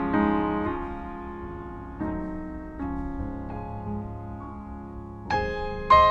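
Background piano music: slow, sustained chords that fade after each strike, with louder, higher notes coming in near the end.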